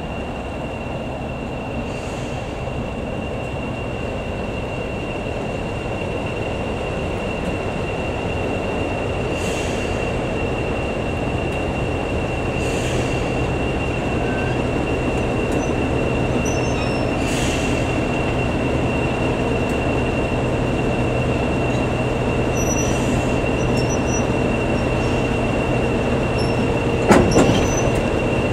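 Class 40 diesel locomotive 40106's English Electric engine working as it hauls the train away, heard from the carriage just behind it, with a steady high turbocharger whistle over the engine hum, growing gradually louder. Near the end the wheels give a sharp clunk over the pointwork.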